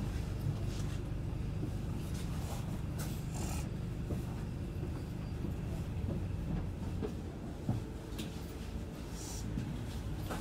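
Cabin noise on the upper deck of an MCV EvoSeti double-decker bus standing at a red light: a steady low engine rumble with a few scattered rattles and clicks from the bodywork.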